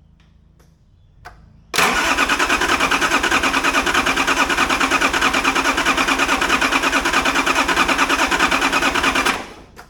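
Nissan RD28 2.8-litre straight-six diesel turning over on its starter motor, with an even, rapid pulsing from the compression strokes, for about seven seconds. It begins about two seconds in and cuts off without the engine catching.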